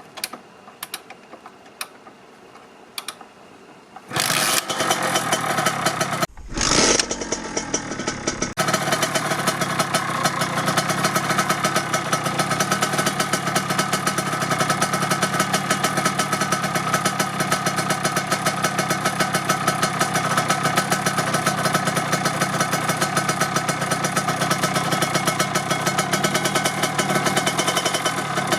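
A 1997 Kawasaki KX80's single-cylinder two-stroke engine being cold-started. After a few clicks it fires about four seconds in and is revved briefly. From about nine seconds on it settles into a steady warm-up idle with a fast, even pulse.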